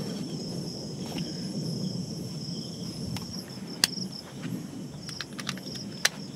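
Crickets chirping in a steady, pulsing high trill. A few sharp clicks cut in, the loudest about four seconds in and another near the end.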